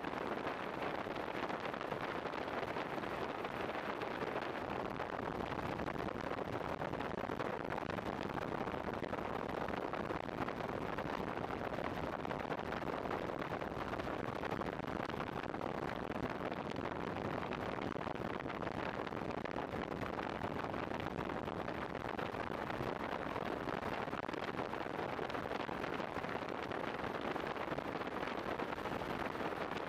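Steady, even rushing roar of a helicopter in flight, with wind noise on the microphone and no distinct beat or changes.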